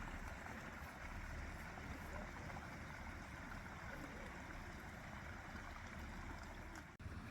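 Steady rushing of a shallow stream with a low rumble underneath. The sound drops out for an instant near the end.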